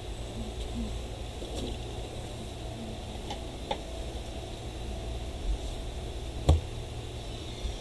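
Steady low room hum with a few faint clicks and taps, and one sharper click about six and a half seconds in.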